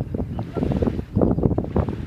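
Wind blowing across the microphone: an uneven low rumble that grows stronger a little past halfway.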